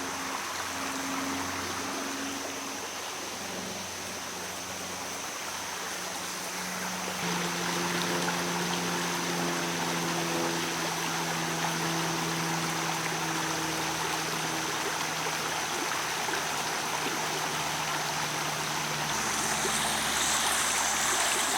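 Stream water running steadily. About seven seconds in, a low steady hum of several tones joins it and fades out near the end.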